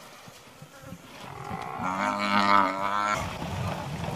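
A lion's drawn-out moaning call of a little over a second, wavering in pitch, starting about a second and a half in and stopping sharply.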